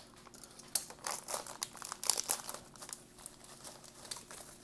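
Crinkling and crackling of a clear plastic MRE accessory pack being opened and its contents pulled out, in irregular handling sounds that are busiest in the first half.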